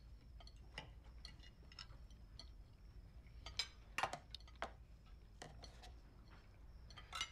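Cutlery clinking and tapping on dinner plates: scattered light clicks, with a few louder clinks between about three and a half and five seconds in.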